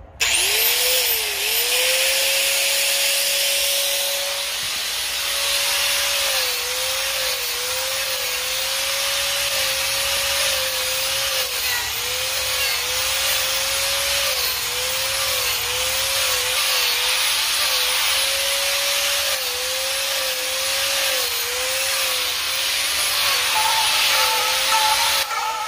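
Angle grinder fitted with a three-toothed Manpa carving cutter spinning up and then cutting into dry arbutus wood. Its motor whine dips again and again as the cutter bites in under load, over a steady hiss of the cut.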